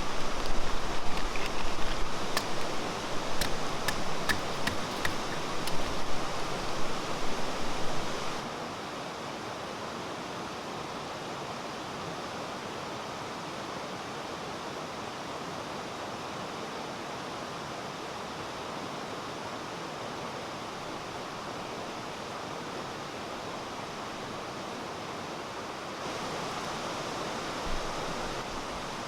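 Mountain stream rushing steadily over rocks. It is louder for the first eight seconds, with several sharp clicks over it, then settles into an even, quieter rush.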